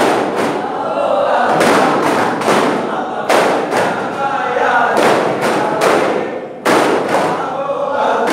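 Daff muttu: a group of men striking daf frame drums together in a repeating rhythm of sharp slaps, with chorus singing underneath.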